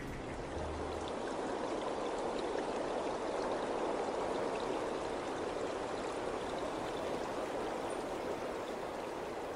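A steady, water-like rushing noise with a few faint ticks.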